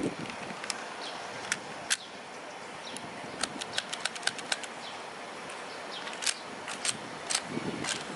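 Plastic clicks from a toy foam-dart revolver being handled. Sharp single clicks come at uneven intervals, with a quick run of about eight clicks in a second and a half about a third of the way in, over a steady hiss.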